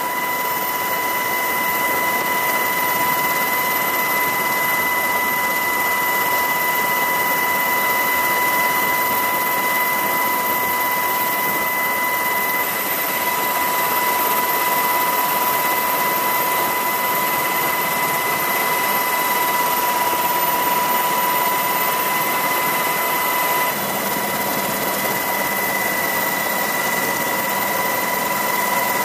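UH-60 Black Hawk helicopter in flight, heard from on board: a steady, loud rush of turbine and rotor noise with a constant high whine.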